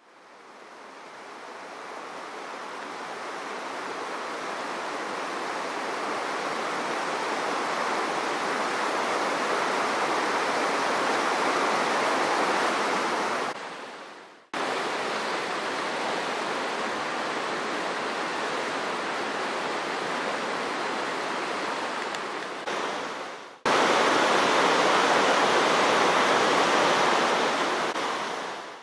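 Cheremosh mountain river rushing over rocks in its rapids: a steady rush of water that fades in at the start, breaks off abruptly twice, about halfway and three-quarters through, and is loudest in the last few seconds.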